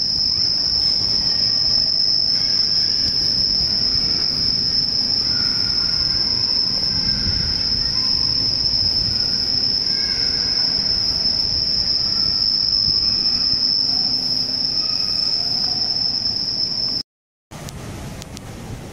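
A steady high-pitched whine, one unchanging tone over faint background noise, which cuts off abruptly near the end.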